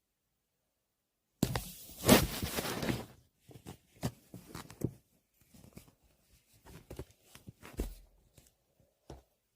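A noisy tearing or crinkling sound close to the microphone for about two seconds, starting about a second and a half in, followed by scattered light clicks and rustles of handling.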